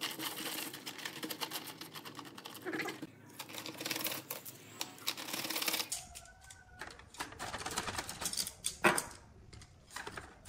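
Bamboo chopsticks clicking and clattering against one another as they are pushed and packed tightly into a plastic tube, a dense run of rapid wooden clicks; about halfway through the clicks thin out, with one sharper click near the end.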